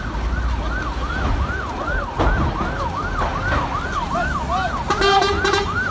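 Fire engine siren on a fast rising-and-falling yelp, about three sweeps a second, over a low rumble. A second, steady horn-like tone joins it near the end.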